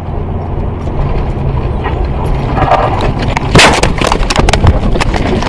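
Car's engine and road noise heard from inside at speed, then, a little past halfway, a loud crash: a heavy impact followed by a quick run of sharp knocks and crunches as the car leaves the road and tumbles.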